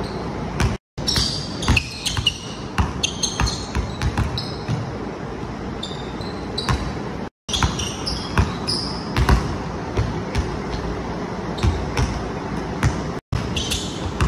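A basketball dribbled hard on a hardwood gym floor, in quick uneven bounces, with short high sneaker squeaks as the player cuts and drives. The sound drops out briefly three times where clips are spliced.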